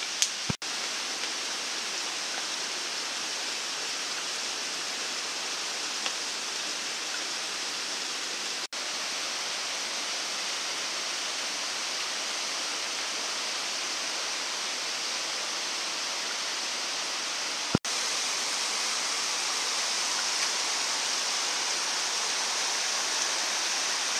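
Steady rushing noise of water with no single drips standing out, broken by three very short cuts, about half a second, nine seconds and eighteen seconds in; a little louder after the last cut.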